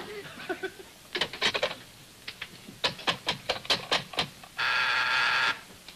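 Telephone handset being picked up and handled with a few clattering knocks, then a quick series of about eight sharp clicks, followed by a steady buzzing ring tone on the line for about a second.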